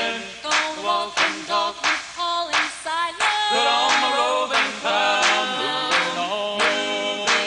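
Bluegrass gospel singing: male and female voices in close harmony over a steady, rhythmic acoustic guitar strum.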